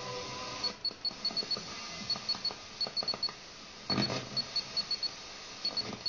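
FM tuner hiss from a weak, fading long-distance sporadic-E signal, with only faint traces of the broadcast getting through, scattered crackles and a brief louder burst about four seconds in. Short high-pitched pips sound in irregular runs.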